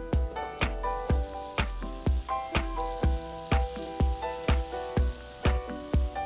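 Butter sizzling as it melts over a hot non-stick frying pan, the sizzle building up from about a second and a half in. Background music with a steady beat of about two thumps a second plays over it and is the loudest sound.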